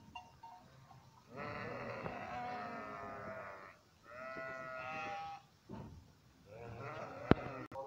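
A flock of sheep bleating in three long, wavering calls from the pen, the calls of sheep at feeding time. A single sharp click sounds near the end.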